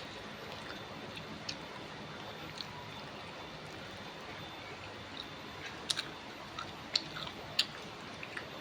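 A person eating rice and curry close to the microphone: quiet chewing with scattered small clicks and mouth smacks, a few sharper ones near the end, over a steady faint hiss.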